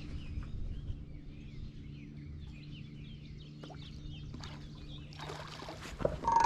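Small birds chirping and twittering over a steady low hum, which stops about five seconds in. A short beep sounds near the end.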